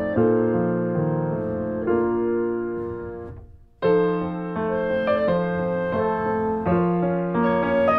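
Instrumental music of slow held chords that change every second or so. It fades almost to silence about three and a half seconds in and starts again a moment later.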